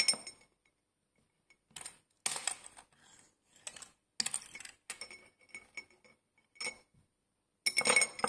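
Small silver jewellery pieces clinking against a drinking glass as they are dipped and moved in silver-cleaning liquid. Clusters of light clinks with a short glassy ring, coming irregularly about every half second to second, loudest near the end.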